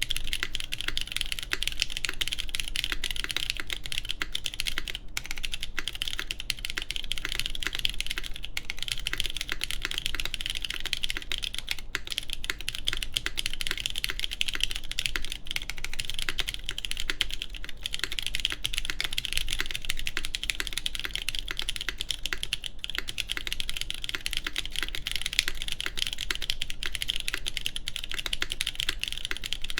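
Continuous fast typing on a mechanical keyboard: an aluminium-plate, top-mount TKL with lubed JWK Cotton Candy linear switches and GMK keycaps, a dense, even stream of keystroke clacks with only brief pauses.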